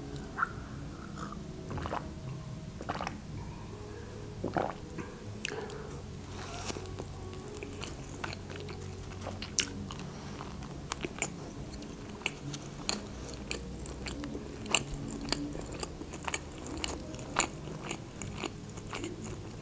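Close-miked eating of a shawarma wrapped in lavash: bites and chewing with many small crisp clicks and crunches from the mouth. A sip from a glass comes near the start.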